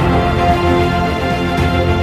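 Background music: held, layered notes in a theme-like soundtrack.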